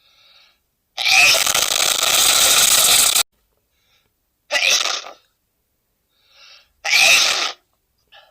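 A man sneezing loudly three times, with faint short breaths between. The first sneeze is long and drawn out, about two seconds; the other two are short.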